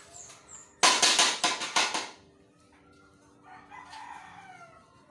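Rooster crowing: a loud, harsh stretch of about a second starting about a second in, then a fainter call falling in pitch near the end, over a faint steady hum.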